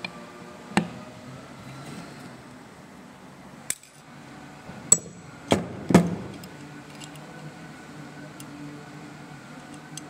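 Sharp metallic clicks and clinks of steel drum-brake shoes and small hardware being handled and knocked together on a workbench: one about a second in, then a cluster of four between about four and six seconds, over a faint steady hum.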